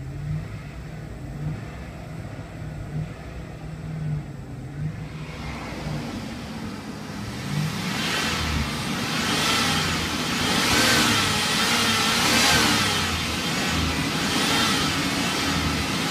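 A 2003 Chevrolet Express van's 5.3-litre V8 runs steadily at idle, smooth-running by the owner's word. It is first heard muffled from inside the cab, then louder and clearer at the open hood from about eight seconds in.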